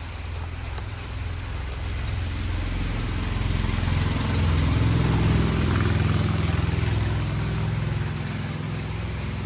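A small engine running steadily, growing louder toward the middle and easing off a little near the end.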